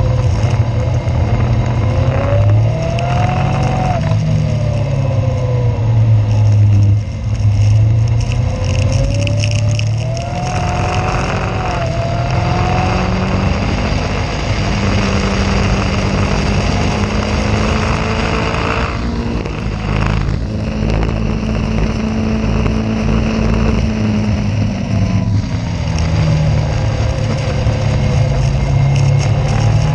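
Caterham race car's engine heard from onboard, running hard with its pitch rising and falling as it accelerates, changes gear and slows.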